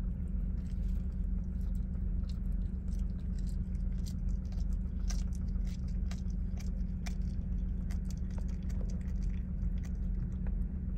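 Caracal kitten chewing and crunching on a whole raw bird, a run of short, sharp bites and cracks throughout, over a steady low hum.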